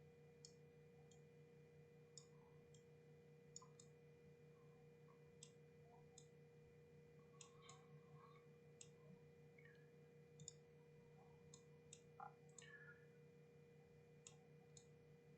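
Near silence: faint, irregular clicks from a computer mouse and keys being worked, about one or two a second, over a low steady electrical hum.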